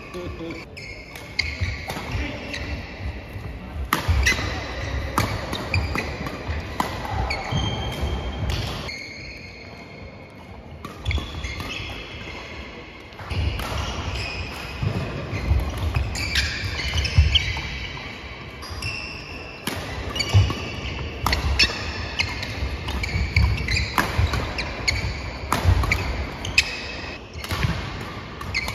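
Badminton doubles rallies on a wooden sports-hall floor: rackets striking the shuttlecock with sharp cracks, shoes squeaking on the court and feet thudding. The play pauses briefly about a third of the way in, between points.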